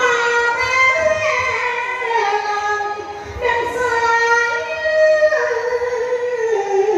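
A woman singing solo into a microphone, holding long notes that slide between pitches. There is a short break about three seconds in before a new phrase starts.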